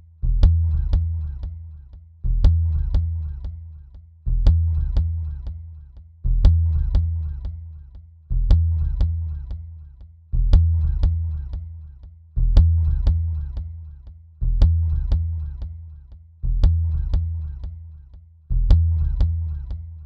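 Looped mood music: a deep bass note struck about every two seconds and fading away, with light ticks and short plucked notes over it, repeating the same figure throughout.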